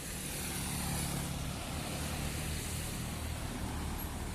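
Heavy diesel road vehicle, a bus or truck, passing on a hill road with a low engine drone over tyre and road noise; it grows louder just after the start, then holds steady.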